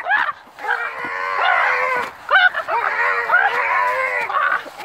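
Young men's voices giving long, drawn-out yells and strained cries while they wrestle, several overlapping with short breaks between them.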